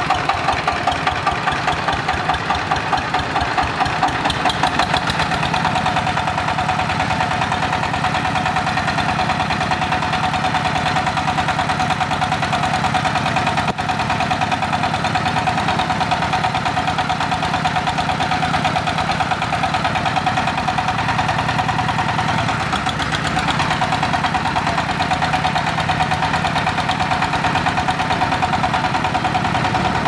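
Single-cylinder diesel engine of a crawler guardrail pile driver running with a fast, even knocking beat; the beat quickens over the first few seconds, then holds steady.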